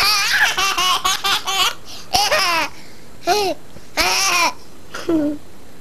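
High-pitched laughing: a rapid, wavering run of laughter over the first second and a half, then several short separate laughs about a second apart.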